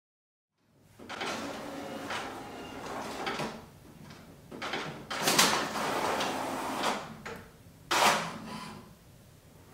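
HP OfficeJet inkjet printer printing: a series of mechanical sliding and clunking sounds as it feeds a sheet and moves the print carriage, starting about a second in, with the loudest strokes about halfway through and again near the end.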